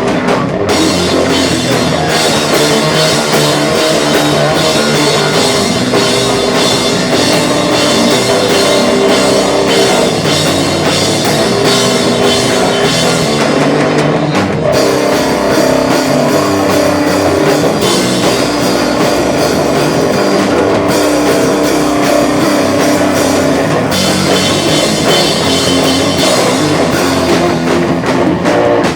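A rock band playing live: drum kit and electric guitars, loud and continuous.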